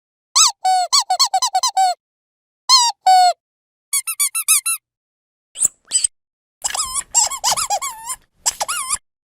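Dog squeaky toy being squeezed: bursts of short, high-pitched squeaks, several a second, in quick runs with silent gaps between them, busiest in a dense run near the end.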